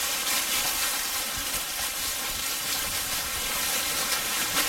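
Dry leaf litter rustling and crackling steadily under a pack of beagles moving about on the forest floor, with short low thumps underneath.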